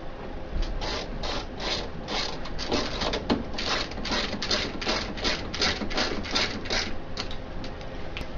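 Screwdriver driving a screw into a printer's back cover, a short rasping click with each turn, repeating about three times a second.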